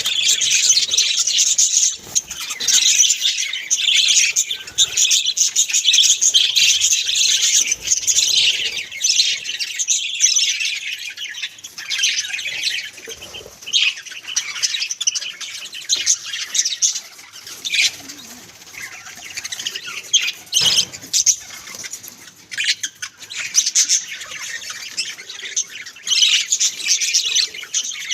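Pet budgerigars chattering and warbling: a dense stream of quick, high chirps, busiest at the start and again near the end and thinner in the middle, with a few low knocks.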